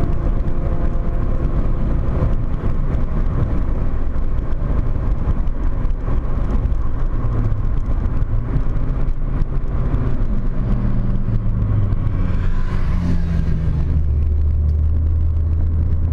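VW Corrado's 1.8-litre 16-valve four-cylinder engine pulling the car along at speed, heard from inside the car with road noise. Its pitch shifts several times as the revs change, then settles into a steady low drone for the last couple of seconds.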